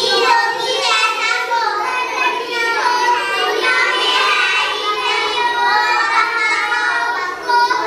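Seven young girls reading aloud from their books all at once, racing in a speed-reading contest, their voices overlapping into a steady, unbroken jumble of child speech.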